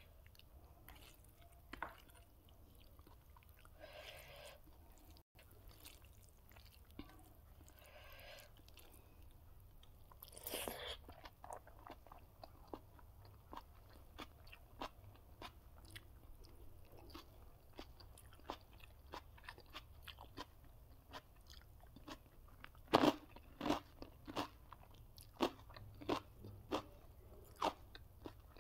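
A person chewing and crunching food, with many sharp bites and clicks; the loudest crunches come in a quick run over the last few seconds.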